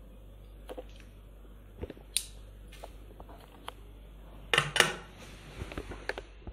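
Metal nail clipper with a clipping catcher clicking as it is handled, its parts snapping together in scattered single clicks, with a quick cluster of louder clicks and taps about two-thirds of the way through.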